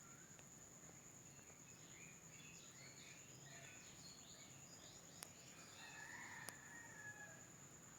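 Near silence: a faint steady high-pitched tone, with faint chirps in the middle and a few soft clicks near the end.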